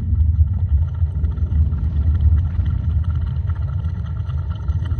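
Deep, steady rumble with faint crackling above it. It is a musique concrète collage built from processed volcano recordings.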